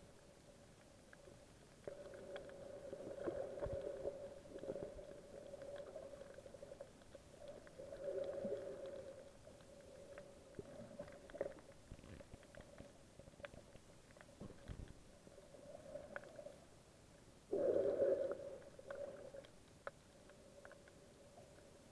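Muffled underwater sound from a camera in a waterproof housing while swimming over a reef: a steady low hum, swelling several times into louder muffled whooshes of moving water, with scattered faint clicks.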